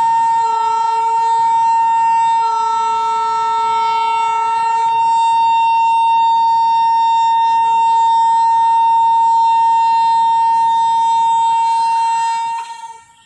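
A loud, steady tone held at one pitch, with a lower note joining in and out during the first few seconds. It cuts off abruptly near the end.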